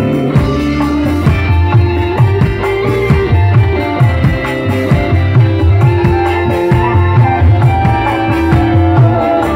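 Live dangdut band playing an instrumental passage: a guitar melody and held notes over a busy, steady drum beat and bass.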